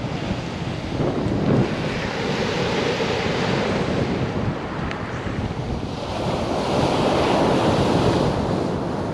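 Sea waves breaking and washing up a pebbly sand beach, with wind buffeting the microphone. A louder wave breaks about six seconds in and runs on for a couple of seconds.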